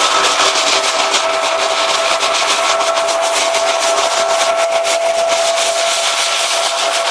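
Hazelnut thresher (patoz) running steadily with a constant whine, over a dense rattle of hazelnuts and husks passing through it.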